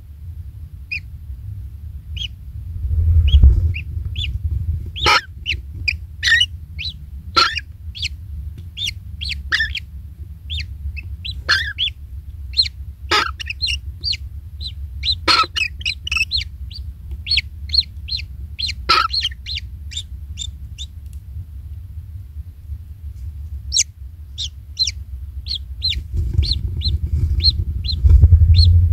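Many short, high bird chirps and calls, repeated irregularly throughout, with a few sharper clicking notes, over a steady low rumble.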